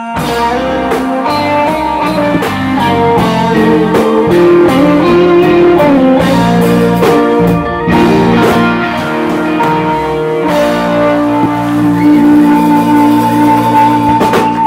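Live rock band playing an instrumental passage: electric guitars over bass and a drum kit, with a long held guitar note over the last few seconds.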